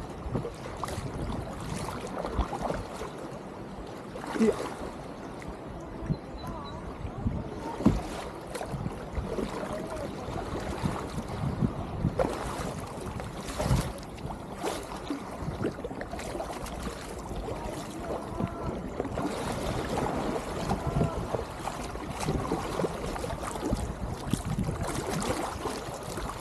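Double-bladed kayak paddle dipping into river water stroke after stroke, with irregular splashes and water rushing along the hull.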